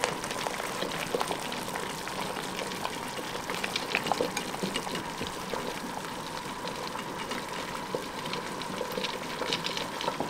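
Hot cherry jam bubbling and spitting in a stainless steel pot, a steady crackle of small pops, with a wooden spoon stirring through it in the second half.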